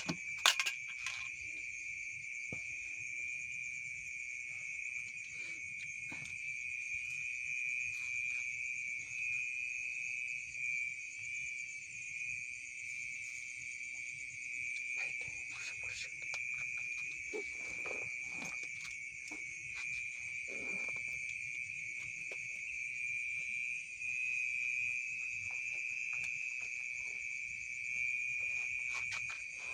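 Steady, high-pitched chorus of night insects trilling without a break, with scattered soft clicks and rustles on top.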